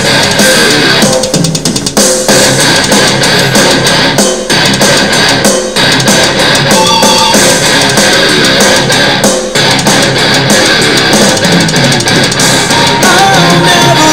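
Music with guitar and drums playing loudly through a Xqisit xqS10 Bluetooth portable speaker during its sound test.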